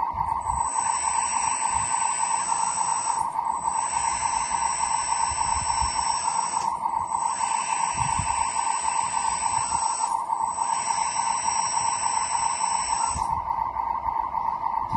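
Electric drive of a 1/12-scale metal hydraulic RC road roller whining: a steady tone runs throughout, while a higher motor whine with gear noise comes in four runs of about three seconds, with brief pauses between them.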